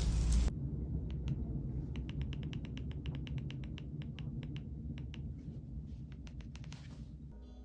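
Typing on a computer keyboard: an irregular, quick run of short key clicks over a low hum, starting just after music cuts off half a second in.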